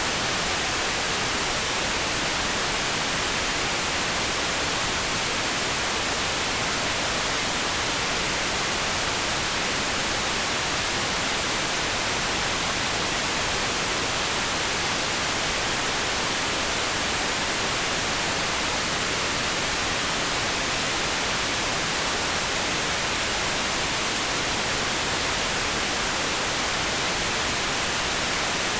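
Steady, electronically generated pink noise: an even, unchanging hiss with nothing else in it.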